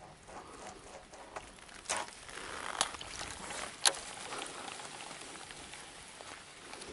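Baitcasting rod and reel being cast from a boat: a stretch of rustling noise with two sharp clicks about a second apart.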